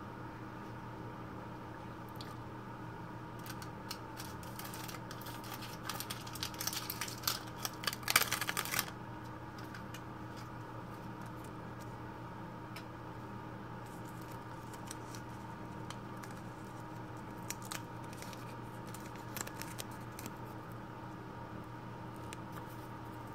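Paper wrapper and backing of an adhesive bandage crinkling and tearing as it is opened and peeled: a dense run of crackles from about four to nine seconds in, then a few scattered crackles later.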